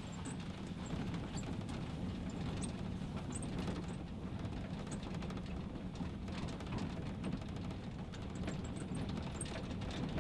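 Outdoor ambience: a steady low rumble of noise with faint high chirps scattered through it.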